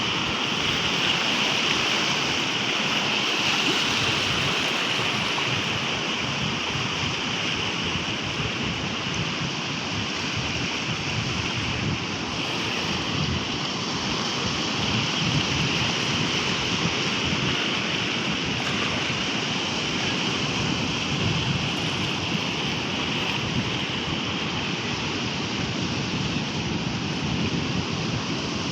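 Surf from waves breaking and washing in, a steady, unbroken rush of water noise.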